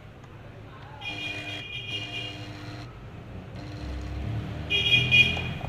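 Braun coffee grinder's electric motor switched on against a seized bushing: it buzzes with a steady whine in two bursts without spinning up, the second louder near the end. The stall comes from a stuck upper bushing.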